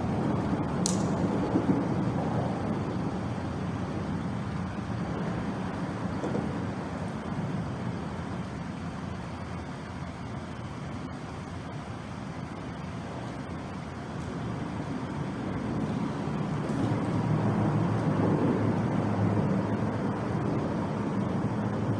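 Road traffic going by, a steady rumble that eases in the middle and swells again near the end as vehicles pass. A short sharp click comes about a second in.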